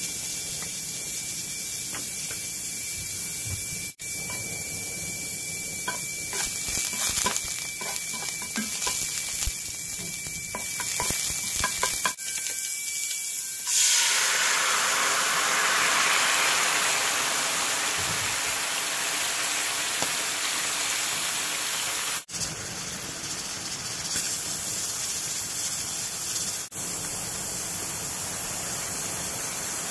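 A steady hiss with a thin high whistle, then about 14 seconds in a sudden loud sizzle as cooking sauce is poured into the hot frying pan. The sauce keeps sizzling and bubbling as it simmers around enoki and king oyster mushrooms.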